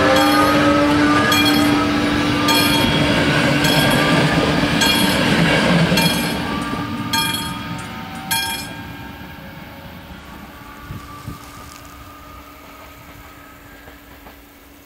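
Level-crossing warning bells of an AŽD 71 crossing striking about once every 1.2 seconds, stopping about eight seconds in as the crossing switches off behind the train. Under them, a ČD class 362 electric locomotive and its passenger coaches pass with rumbling wheels and a rising electric whine, fading away as the train leaves.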